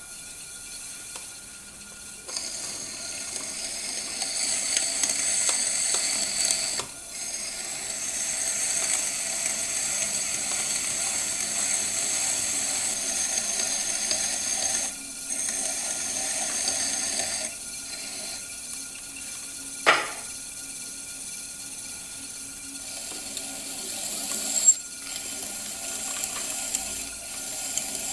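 Electric potter's wheel running with a steady hum while a trimming tool scrapes and shaves clay off the foot of an upside-down bowl in long passes. The scraping stops briefly a few times as the tool is lifted. A sharp click comes about twenty seconds in and another a few seconds later.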